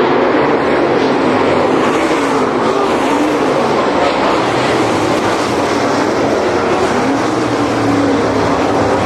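A pack of dirt late model race cars with V8 engines running at speed around a dirt oval. It is a loud, continuous blare whose pitch rises and falls as the cars pass and change speed through the turn.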